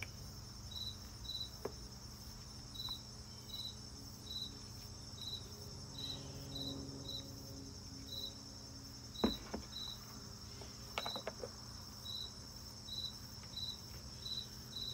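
Crickets chirping: short, repeated high chirps, roughly one to two a second, over a constant high insect buzz. A few sharp clicks sound about nine and eleven seconds in, the first the loudest sound in the stretch.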